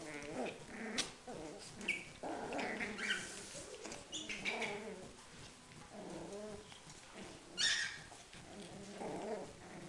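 Schipperke puppies play-fighting, growling in several wavering bouts, with a brief sharp high noise near the end.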